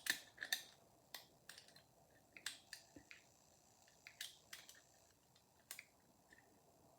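Faint, irregular metallic clicks of homemade lever-lock picks working the levers of an Imperial 5-lever mortice sash lock, about ten clicks at uneven spacing.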